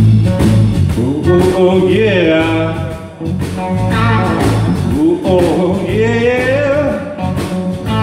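Live blues-rock band playing: electric guitar, bass guitar and drums, with a singer holding long, wavering notes.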